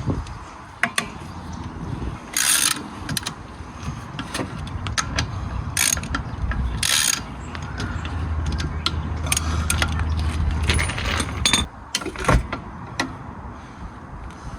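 Socket ratchet working on the car, with irregular ratcheting clicks and clinks of metal tools and a few short rasping bursts.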